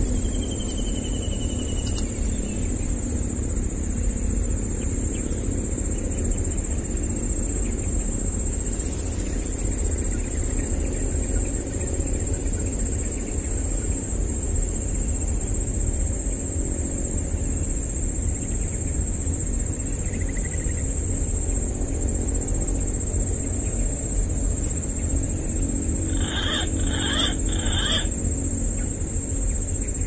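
Steady high-pitched drone of insects, such as crickets, over a low rumble like wind on the microphone. A short falling whistle sounds at the start, and near the end come three short chirps in quick succession.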